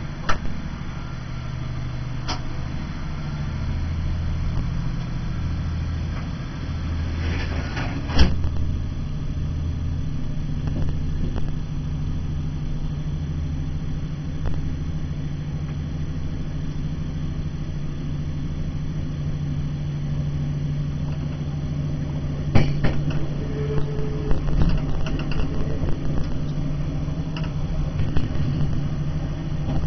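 Diesel multiple unit running along the line, heard from the driver's cab: a steady low engine drone with occasional sharp knocks from the wheels over rail joints and pointwork, louder about eight seconds in and again in a cluster near the end.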